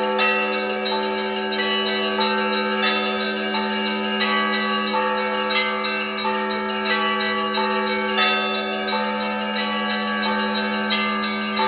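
Russian Orthodox church bells rung together to call people to a service. Several bells of different pitches are struck in a quick, steady rhythm over the lasting hum of a larger bell.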